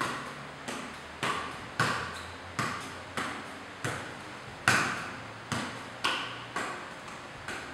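A football being juggled barefoot. Each touch gives a dull thud with a short echo, about a dozen touches spaced half a second to a second apart, the hardest a little past the middle.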